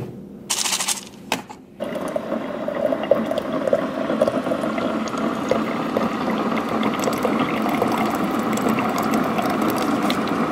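Electric breast pump running: a steady mechanical whir that starts about two seconds in.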